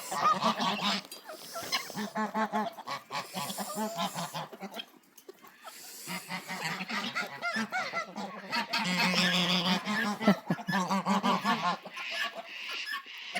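A flock of geese honking and calling over one another, with a short lull about a third of the way through before the calling picks up again and grows denser.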